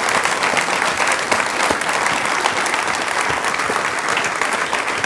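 A large audience applauding, many hands clapping steadily.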